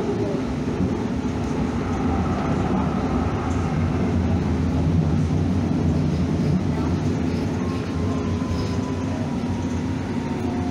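Calgary C-Train light rail car running along the track, a steady rumble of wheels and traction motors. A faint whine glides slightly in pitch near the end.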